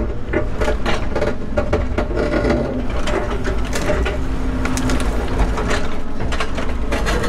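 Volvo 140 excavator running and digging rocks out of the ground, its bucket clanking and scraping against rock in a rapid run of sharp knocks over the steady engine rumble.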